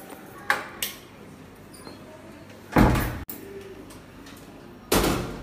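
Steel grille door being pulled shut and locked: two light clicks near the start, then two loud bangs, one about three seconds in and one near the end.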